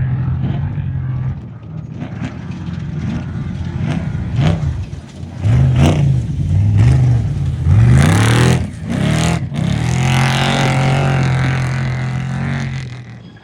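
Off-road race truck engine running hard, its pitch rising and falling several times as it revs, with a burst of rushing noise at the loudest point about eight seconds in. It then holds a steady pitch and fades away near the end.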